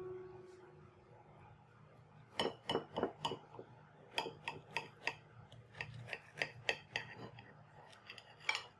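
Table knife sawing through a toasted grilled cheese sandwich on a plate, with a fork holding it: a run of short, crisp scraping strokes starting about two seconds in and running until near the end.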